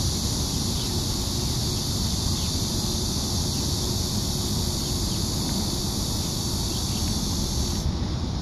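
A steady, high-pitched insect drone that cuts off suddenly near the end, over a steady low rumble.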